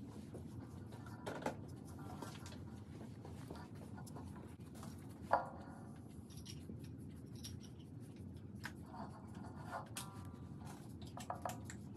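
Faint scratchy strokes of a watercolour paintbrush on paper, with scattered light clicks and taps, over a low room hum. A short, louder pitched sound comes about five seconds in.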